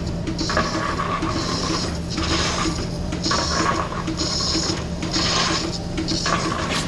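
Lely Astronaut A5 milking robot working to attach its teat cups: a steady machine hum with rasping air hisses that come and go about once a second.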